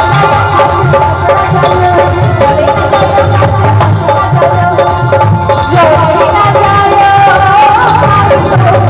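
Loud live band music over a PA system: hand drums beating a steady rhythm, with a rattling percussion line and a wavering melody above.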